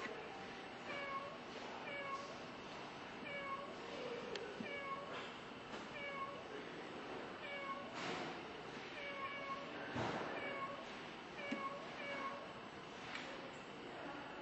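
Recorded cat meows playing from an interactive touchscreen exhibit, short identical mews repeating over and over about every half second. A few sharp knocks come in about two thirds of the way through.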